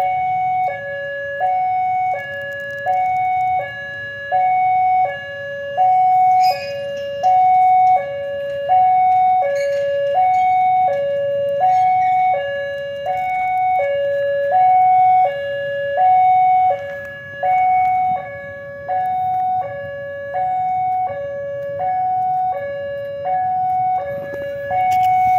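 Railway level crossing warning alarm sounding a two-tone high–low signal, each tone held about 0.7 s and repeating steadily, warning road traffic that a train is approaching.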